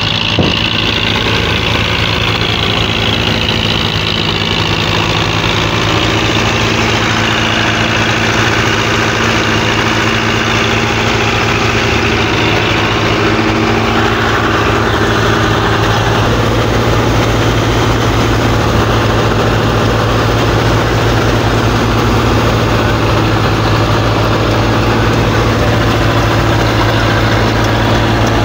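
Belarus 510 tractor's diesel engine idling steadily.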